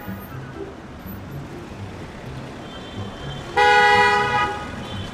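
A car horn sounding a single steady honk of just under a second, about three and a half seconds in, over low background noise.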